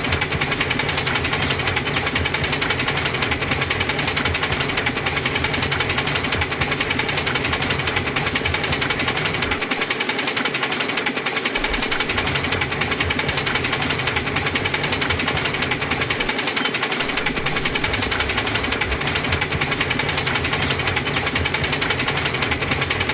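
Engine running steadily with a fast, even knocking rhythm. The low rumble drops away briefly twice, about ten and sixteen seconds in.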